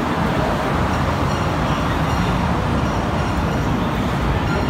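Steady rumble of city road traffic, an even noise heavy in the low end with no clear events, heard while walking.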